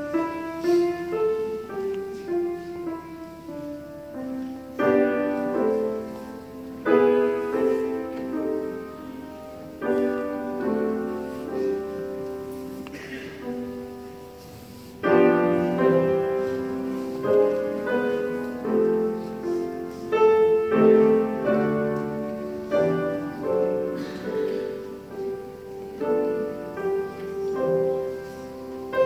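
A grand piano played solo: a slow piece of chords under a melody, with each note struck and left to ring, growing louder about halfway through.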